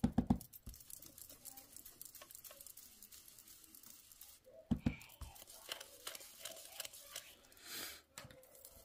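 Blending brush picking up ink from an ink pad and being buffed over a paper mask on cardstock: quiet, scratchy brushing and rustling, with a couple of sharp knocks at the start, another about five seconds in and a short swish near the end.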